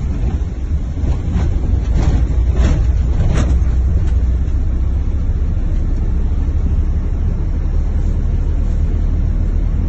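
Car driving, heard from inside the cabin: a steady low rumble of road and engine, with four light knocks between about one and three and a half seconds in.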